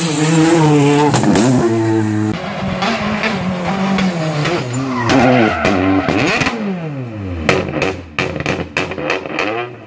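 Rally car engines at full throttle on a tarmac stage: first one car passing close, then a Peugeot 208 rally car revving hard, its pitch climbing and dropping through gear changes. As it slows for a hairpin, a rapid run of sharp cracks sounds from the exhaust for about three seconds near the end.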